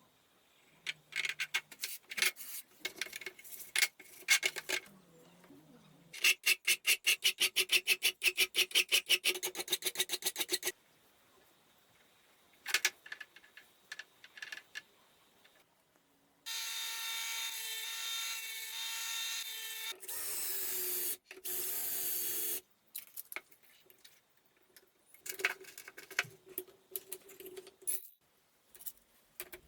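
Small metal parts of a padlock clicking and rattling, with a run of rapid, even clicks of about seven a second, then a steady whir lasting a few seconds that drops in pitch before cutting off.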